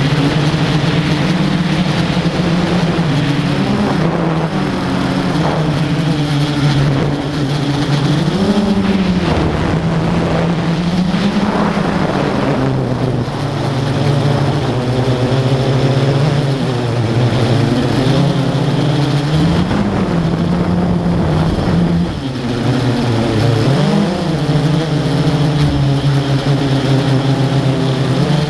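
Blade 350 QX quadcopter's brushless motors and propellers humming steadily, heard from the camera mounted on the drone, the pitch swooping up briefly a few times as the throttle changes.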